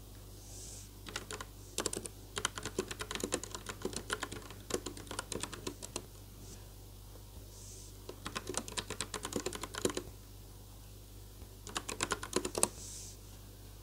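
Typing on a Logitech POP Keys mechanical keyboard with round keycaps: quick runs of key clicks with pauses between them. There is a long run in the first half, another starting around eight seconds, and a short burst near the end.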